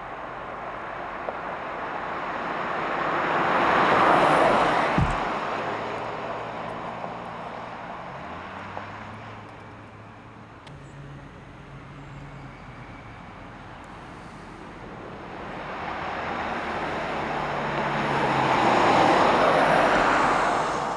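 Chevrolet full-size hybrid SUV driving past on a paved road, its engine and tyre noise swelling and fading as it goes by. A second pass-by builds near the end and cuts off abruptly.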